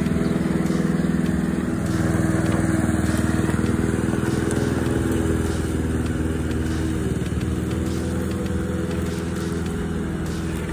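Mountfield SP535 HW petrol lawn mower engine running steadily while mowing grass. The note shifts slightly about two seconds in and grows a little quieter in the second half.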